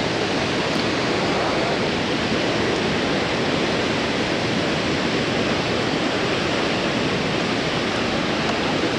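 Waterfall rushing: an even, unbroken noise of falling water, strongest in its lower, fuller range.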